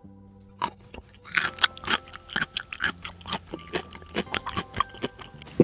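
Chewing and munching: a quick, irregular run of small crunchy bites, as of someone eating.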